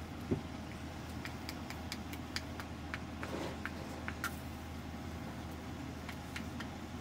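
Scattered light clicks and clinks of utensils and containers as a street food stall is set up, with one duller thump about a third of a second in, over a steady low background hum.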